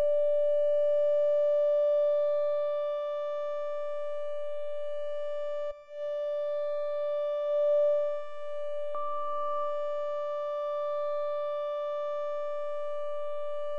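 A software synthesizer holding one steady, mid-pitched note with a stack of overtones: a mellow pad patch being sound-designed. The note cuts off briefly and restarts about six seconds in, and swells a little about two seconds later.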